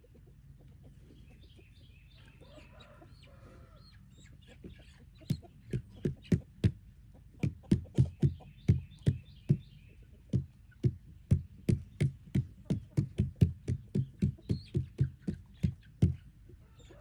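Chickens clucking, and from about five seconds in a run of loud, sharp knocks, two or three a second, as old chicken litter is knocked out of its container; the knocks stop about a second before the end.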